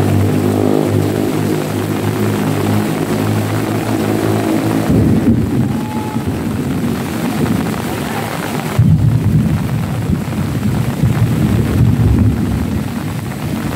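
A steady, even engine drone for about the first five seconds, then a low rumble that swells about nine seconds in and fades near the end.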